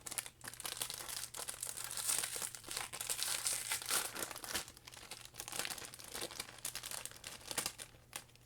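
Crinkly plastic packaging being handled and crumpled, a continuous close crackle that is busiest and loudest in the middle.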